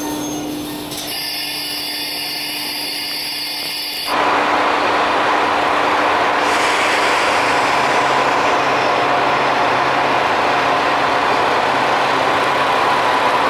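Train noise in the diesel railcar as it rolls slowly into the station. About four seconds in, a cut brings a louder, steady din on the station platform beside diesel railcars standing with their engines idling.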